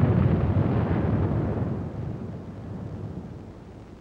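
Rumble of a large explosion dying away, loudest at the start and fading steadily over about three seconds.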